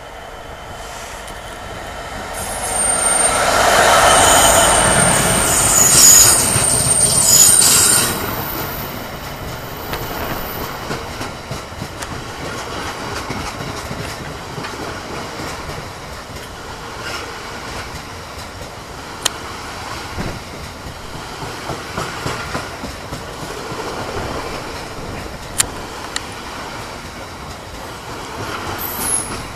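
Train running past on the rails with a high-pitched wheel squeal, loudest from about three to eight seconds in. It then settles to a steady rolling rumble with scattered sharp clicks from the wheels on the track.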